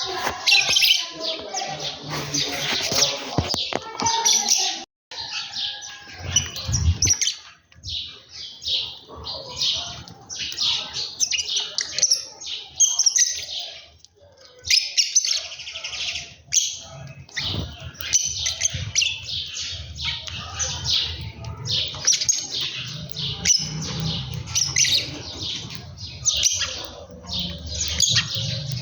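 Many small birds chirping at once, calls overlapping almost without pause, with brief breaks about five and fourteen seconds in.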